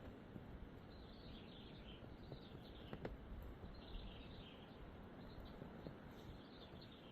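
Faint steady background hiss with scattered faint high chirps and a single soft click about three seconds in.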